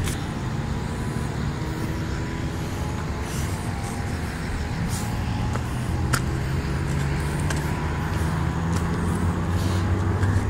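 Steady low drone of distant motor traffic, with a few footsteps scuffing on bare rock.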